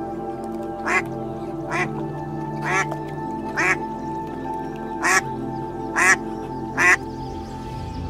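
Domestic ducks quacking: seven short, loud quacks about a second apart that stop shortly before the end, over steady background music.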